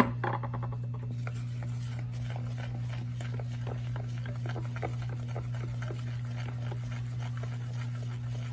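Wooden spoon stirring water into rye flour in a plastic bowl: a sharp knock right at the start, then a run of soft, irregular scrapes and taps against the bowl. A steady low hum sits underneath.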